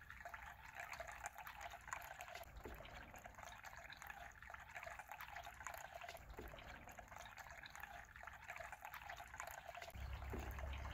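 Small tiered tabletop fountain trickling: a thin, steady stream of water splashing into its basin, faint.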